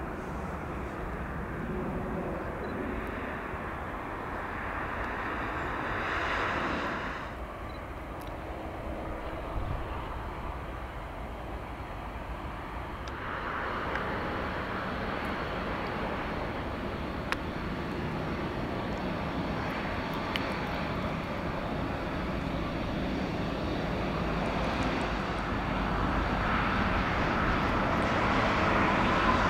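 Airbus A320neo's CFM LEAP-1A turbofan engines running as the jet rolls along the runway. The steady engine noise grows louder over the last several seconds as the aircraft comes closer.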